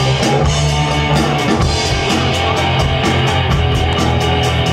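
Live rock band playing: two electric guitars over a drum kit, with a strong, steady bass line and regular drum beats.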